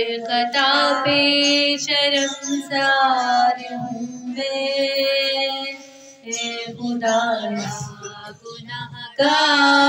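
Female voice singing a naat, an Urdu devotional song in praise of the Prophet, with long drawn-out, wavering notes and brief pauses between phrases.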